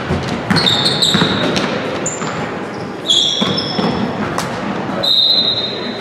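Basketball game sounds on a hardwood gym floor: sneakers give three short high squeaks, about half a second, three seconds and five seconds in, between thuds of a ball being dribbled, with the hall echoing.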